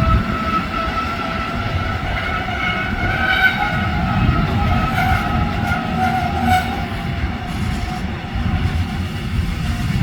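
Freight train braking, its brakes squealing in a wavering high tone over the low rumble of the wagons. The squeal fades out about two-thirds of the way through, leaving the rumble.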